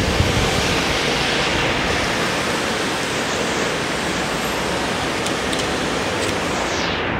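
Steady loud rushing noise like moving air, with a low thump right at the start.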